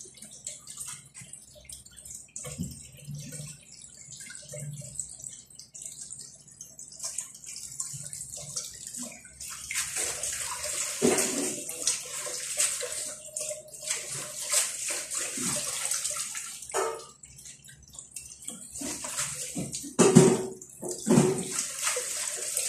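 Water running, starting about ten seconds in and going on from there, with a few loud knocks a couple of seconds before the end.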